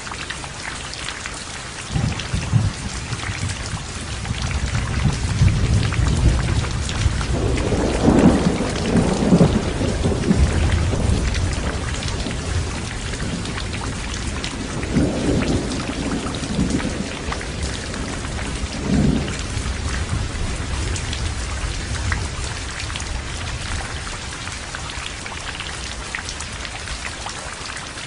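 Heavy rain falling steadily, with a thunderclap about two seconds in that rolls into a long low rumble. Two more peaks break through the rumble later on before it dies away under the rain.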